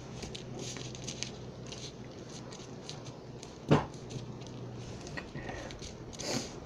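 Paper rustling and crinkling as a paper airplane wing is folded and its crease pressed down by hand, with one sharp knock a little after halfway.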